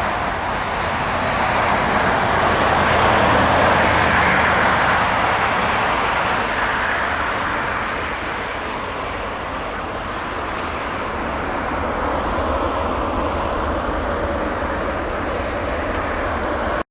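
Jet airliner engine noise: a loud, steady rushing that swells about three seconds in, eases off, then rises again.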